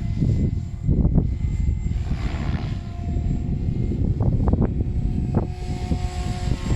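Electric Goblin 580 RC helicopter in flight, the thin whine of its rotor and motor heard under heavy wind buffeting on the microphone, with a few short gust pops about four to five seconds in.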